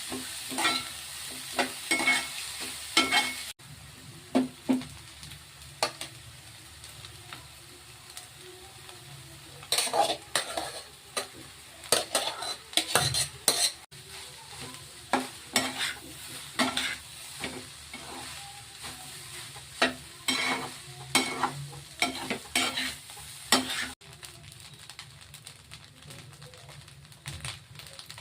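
Egg fried rice frying and sizzling in a pan while a utensil stirs and tosses it, with frequent irregular knocks and scrapes against the pan over a steady sizzle.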